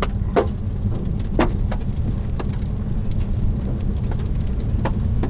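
Hailstones knocking on a car's roof and windshield, a sharp click here and there at irregular moments, over the steady low rumble of the car driving on a hail-covered road.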